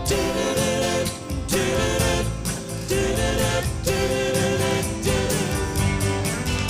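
Live rock band playing an instrumental passage: held melody notes over bass guitar, guitar and a steady drum beat.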